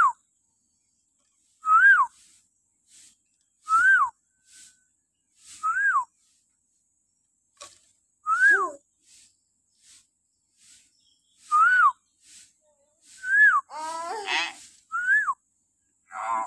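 Hill myna giving shrill whistled calls, each rising then dropping sharply, repeated about every two seconds. About fourteen seconds in comes a harsher, more complex call.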